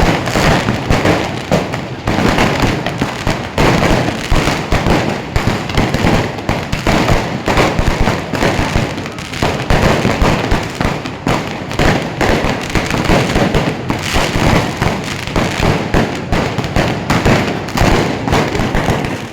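Fireworks and firecrackers going off in a dense, continuous barrage of overlapping bangs and crackling, with no let-up.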